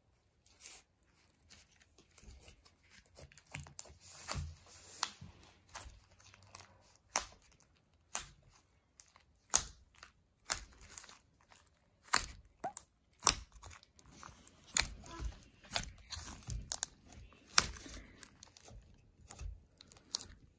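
Clear slime being stretched and squeezed by hand: irregular sticky clicks, small pops and crackles, scattered through.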